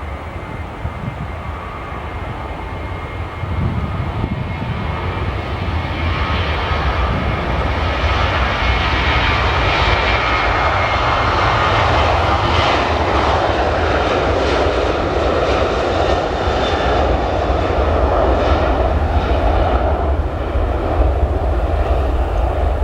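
Jet airliner's engines passing close by, a loud roar that swells a few seconds in and holds, with a faint high whine early on.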